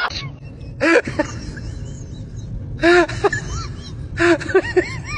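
A cat giving short meows in three quick bursts, each a string of brief rising-and-falling calls, about a second, three seconds and four and a half seconds in, over a low steady hum.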